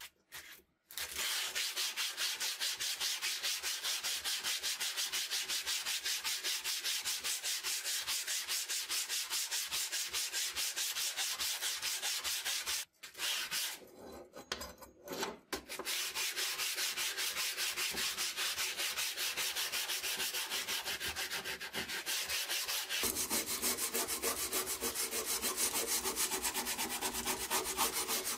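Sanding block rubbed by hand in quick back-and-forth strokes along the rusted steel blade of a Mauser 98K bayonet, scouring off rust. The strokes stop for about two seconds around the middle, then resume and sound a little fuller near the end.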